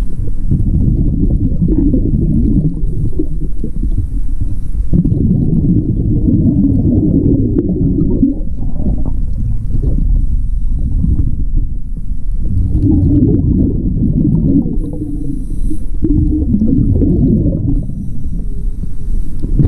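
Scuba diver breathing through a regulator underwater, heard close up: exhaled bubbles rush out of the regulator exhaust as a low rumbling gurgle in surges a few seconds long. A faint hiss between the surges comes from the inhalations.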